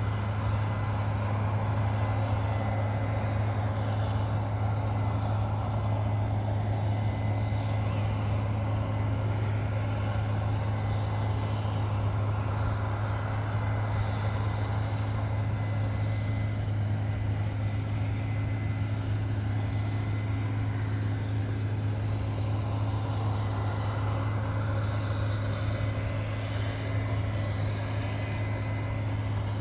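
Case IH combine harvester running under load as it cuts and threshes wheat: a steady, deep engine drone with the continuous rush of the threshing machinery and a faint high whine above it.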